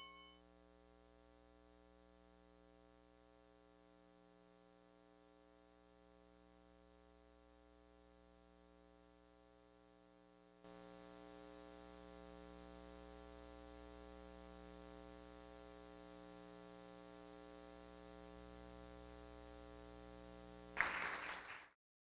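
Near silence with a faint, steady electrical hum made of several even tones. The hum gets a little louder about halfway through. A brief rush of noise comes just before the sound cuts off.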